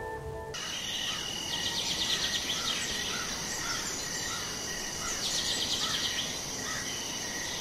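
Outdoor nature ambience: a steady high-pitched drone of insects such as crickets, with birds chirping over it at short intervals and two short stretches of rapid trilling, one early and one in the second half.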